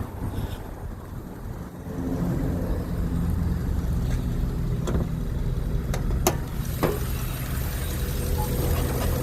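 Honda Civic D16Y1 1.6-litre four-cylinder engine idling steadily, which the owner says no longer has rod knock after a Blue Devil sealant treatment. A few sharp clicks come in the second half.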